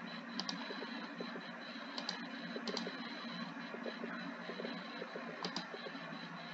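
Computer mouse clicks, a few sharp ones spaced a few seconds apart, as rows are selected in a software list, over a steady background hum.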